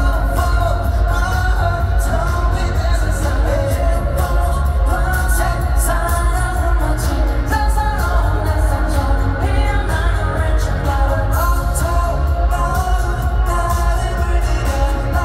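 Male K-pop boy band singing a pop song live with backing music over a concert sound system, recorded from the audience, with a heavy, boomy bass underneath the voices.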